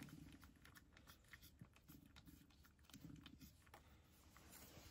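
A cat chewing and eating from a wooden dish: faint, irregular small clicks and soft chewing sounds.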